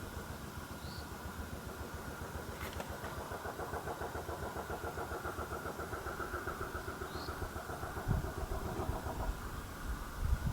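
An engine running steadily at idle, with a faint even pulsing.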